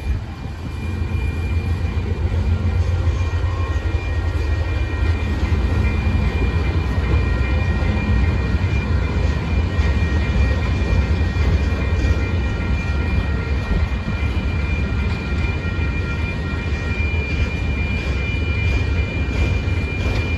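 Freight train cars (tank cars, then autorack cars) rolling past at close range: a loud, steady low rumble of wheels on the rails, with a thin high tone ringing steadily above it.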